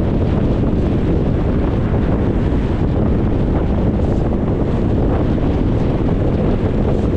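Steady road and wind noise from a moving car: a dense, even rumble strongest in the low end, with no change in level.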